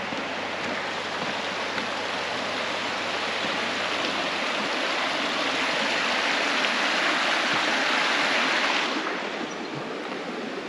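River water rushing steadily over a rocky riffle, the river running high. It grows louder through the middle and drops off suddenly near the end.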